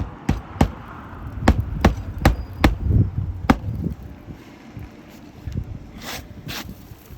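Roofing tools working on shingles during a repair: seven sharp knocks in the first three and a half seconds, followed by two softer scraping sounds about six seconds in.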